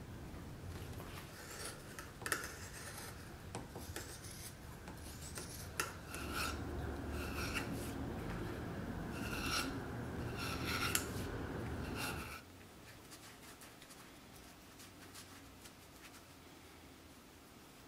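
A hand tool scraping and rubbing over rough-out leather in a run of irregular strokes, with the leather being handled. It stops abruptly about twelve seconds in, leaving only faint room sound.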